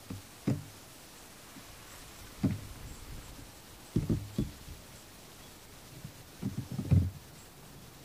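A few dull low knocks at irregular intervals, with a quick cluster of them about seven seconds in being the loudest, over a faint steady hiss.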